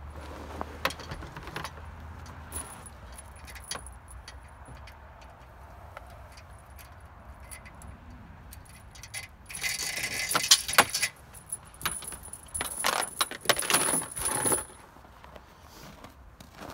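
A steel chain rattling and clinking as it is handled and piled onto an SUV's cargo floor, in two spells about halfway through and near the end. The first spell is the loudest. A few light knocks come earlier.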